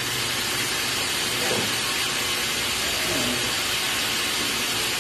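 Handheld heat gun blowing hot air in a steady hiss. It is held over the cap of a 5-gallon water jug to shrink its plastic seal.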